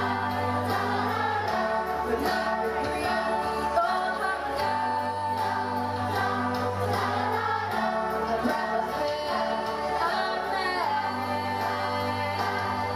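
Youth glee choir singing in unison and harmony, a girl's lead voice on a handheld microphone amplified over the group, with accompaniment whose low bass note changes about every three seconds.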